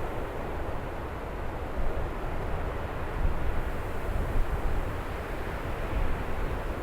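Breeze blowing: a steady rushing noise with a deep rumble, swelling and easing a little in gentle gusts.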